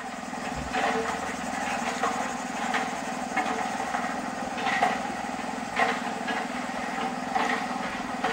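A small electric water pump motor hums steadily, driving the water out of the model hand pump's spout. A few brief clicks sound over the hum.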